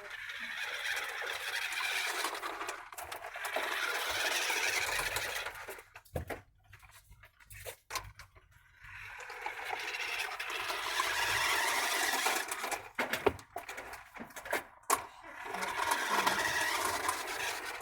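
Large remote control car's electric motor and drivetrain whirring in three long bursts as it is driven, with a few sharp knocks in the pauses between.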